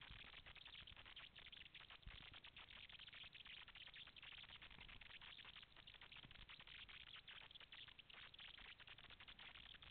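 Near silence: a faint, dense crackling patter with low rumble underneath.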